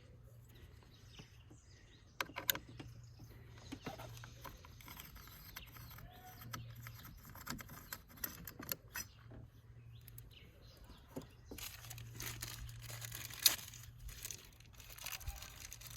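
Faint handling noise of hand tools and small parts: scattered light clicks and rustles over a low steady hum, with one sharper click near the end.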